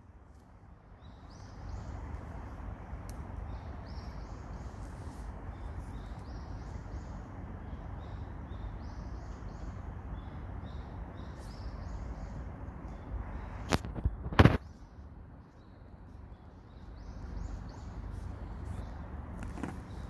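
Outdoor ambience: a steady low rumble, like wind on the microphone, under many short high chirps of small birds. Two sharp clicks come a little past halfway.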